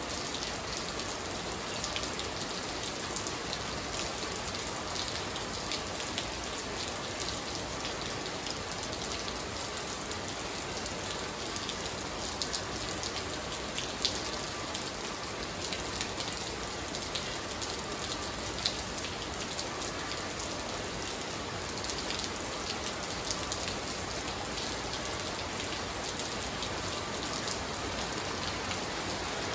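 Steady rain falling on a wet, puddled tiled floor and garden plants: a dense patter of drops, with a few louder single drops standing out.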